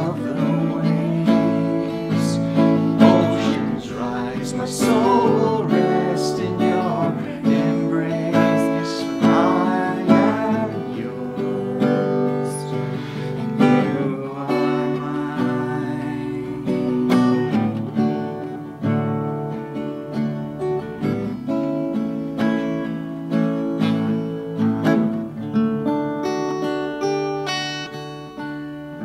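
Acoustic guitar strummed as accompaniment to a girl's and a man's voices singing a slow worship song, gradually getting quieter toward the end.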